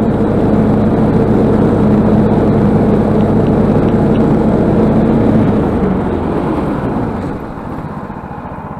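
Snowmobile engine running under steady throttle while driving across snow. About two-thirds of the way through it eases off and gets quieter as the machine slows.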